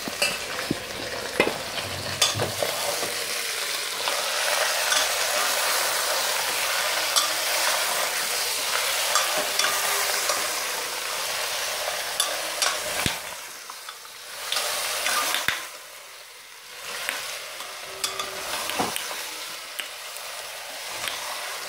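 Mutton frying in oil in an open pressure cooker, sizzling steadily while a steel ladle stirs it, with scattered clicks and scrapes of the ladle against the pot. The sizzle dips briefly about two-thirds of the way through.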